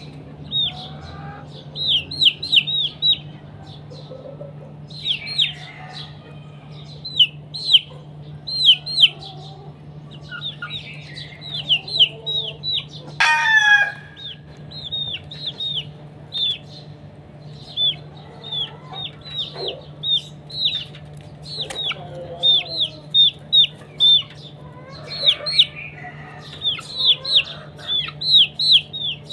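Domestic chickens: chicks peeping in quick runs of three to five high notes throughout, with lower clucking between them and one louder, longer call from an adult bird about 13 seconds in.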